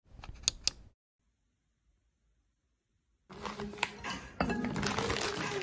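Two bright clinks at the start, then a gap of about two seconds. From about three seconds in, a plastic food bag crinkles as it is handled, and background music comes in under it near the end.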